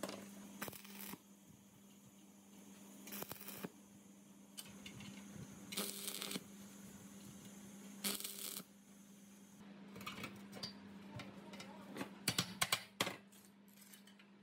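Short bursts of stick-welding arc crackle, four of them, each about half a second, over a steady low hum. From about ten seconds in come metal clanks and taps, loudest in a quick cluster around twelve to thirteen seconds, as the steel vibrator motor housing is set on the welded base plate and lined up.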